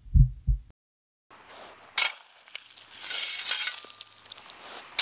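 Two low heartbeat thumps, then a short silence. After that comes gritty crunching of footsteps on a beach of pebbles and broken shells, with a sharp crunch about two seconds in.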